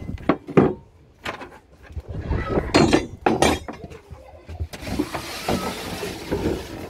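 Irregular knocks and clunks, several of them sharp, then a steady hiss from about five seconds in.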